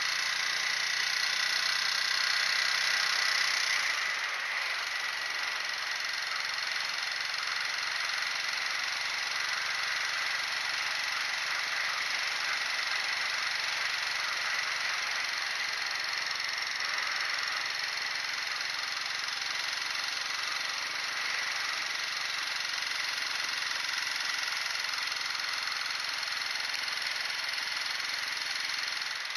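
Motorcycle engine running steadily, with a dense rush of noise over it.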